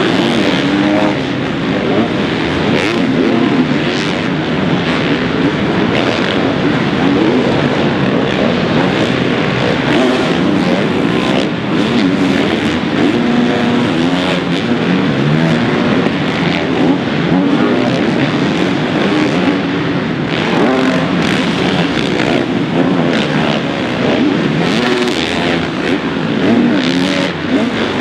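Several four-stroke motocross bikes running on a dirt supercross track, their engines revving up and dropping off over and over as the riders accelerate, shift and roll off through turns and jumps.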